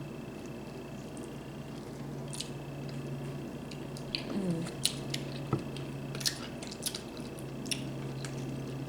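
Seafood boil eating noises: scattered small clicks, cracks and wet squishes of sauce-covered seafood being handled and chewed, starting about four seconds in, over a low steady hum.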